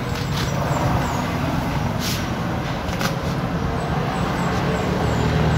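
A steady low mechanical rumble in the background, with a few brief sharp clicks and rustles from a plastic parts packet being handled and opened.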